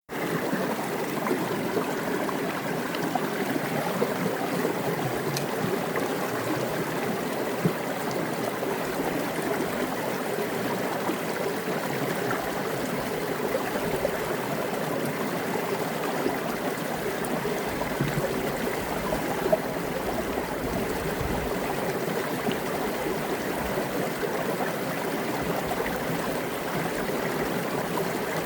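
Mountain creek water cascading down a rock, a steady splashing and gurgling rush with small irregular spatters.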